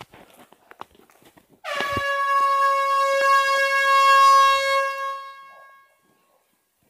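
Air horn giving one long blast of about four seconds, starting about a second and a half in: a single steady pitch with a slight dip at the onset, fading out at the end. Faint clicks come before it.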